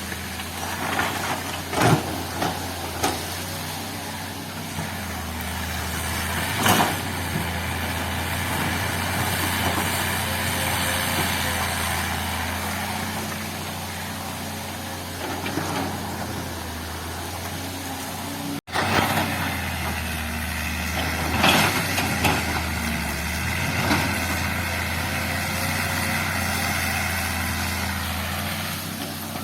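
Diesel engine of a heavy earthmoving machine running steadily during road-building work, with scattered sharp knocks and clanks, the loudest about two seconds in. The sound cuts out for an instant a little past the middle.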